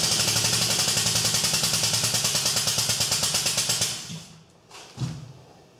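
Air-powered tool chattering rapidly, several strokes a second, with a loud air hiss, stopping about four seconds in; a couple of light metal knocks follow.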